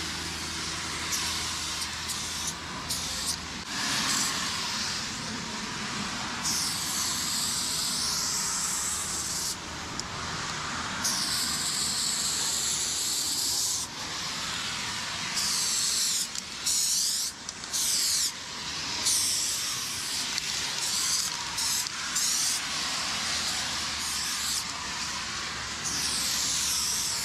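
Aerosol spray paint can hissing in bursts of varying length, starting and stopping again and again as paint is sprayed onto a wall.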